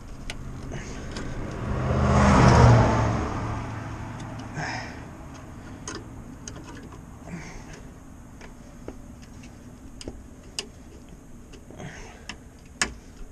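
A passing vehicle swells and fades over a few seconds, loudest about two and a half seconds in. Scattered small clicks and taps come from hands working a plastic hose connector at the truck's EVAP canister vent solenoid.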